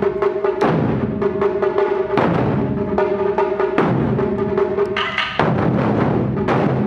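Taiko drum ensemble playing: sticks striking large laced drums, with heavy unison accents about every second and a half and quicker beats between them. A steady held note sounds under the drums until about five seconds in.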